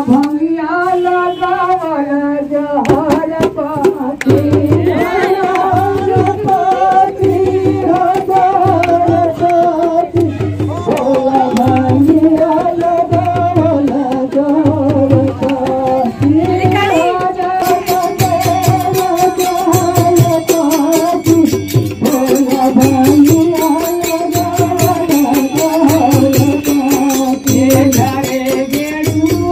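Devotional folk singing of a Shiva hymn, one voice amplified through a microphone, over a steady drum beat. A rapid high ticking joins about halfway through.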